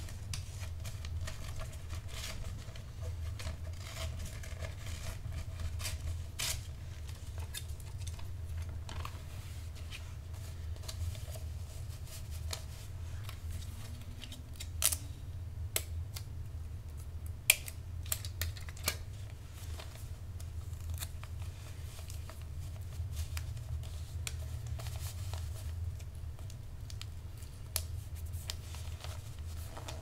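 Scissors snipping through wrapping paper, close up, with paper handling and scattered sharp clicks; the loudest clicks come a little past halfway. A steady low hum runs underneath.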